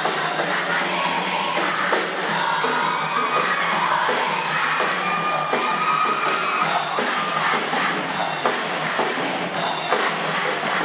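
A large cheering section singing a cheer song together over music with a steady drumbeat.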